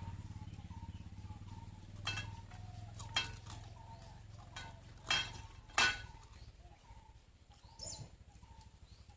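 A few sharp clinks or knocks, the loudest two about five and six seconds in, over faint repeated bird calls. A low engine hum fades away in the first two seconds.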